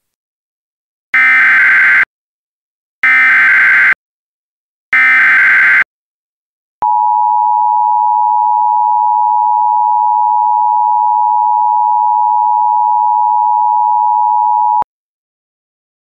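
Emergency Alert System alert tones from a simulated severe thunderstorm warning: three short, loud bursts of SAME header data about a second apart, then the two-tone attention signal, two steady tones sounding together, held for about eight seconds and cutting off abruptly.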